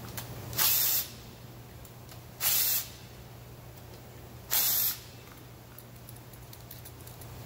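Three short spray bursts, each under half a second, about two seconds apart.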